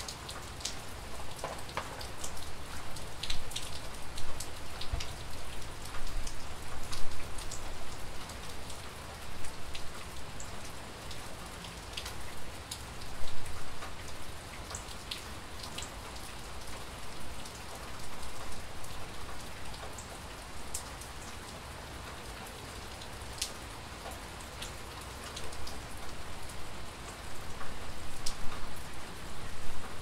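Steady rain falling, with many scattered sharp taps of individual drops striking close by.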